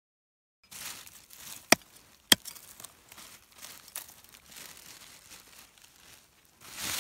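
Dry crinkling and scraping of hands and a plastic bag working in dry, stubbly rice-field soil while digging out a snail, with two sharp clicks about half a second apart around two seconds in, the loudest sounds, and a burst of rustling at the very end.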